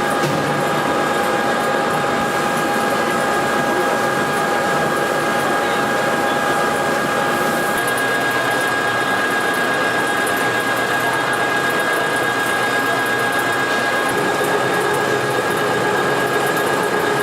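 A machine running steadily, a dense hum with a few fixed high whining tones held throughout.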